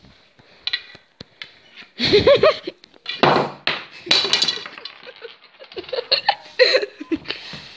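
Boys laughing in loud bursts, after a few light knocks in the first couple of seconds.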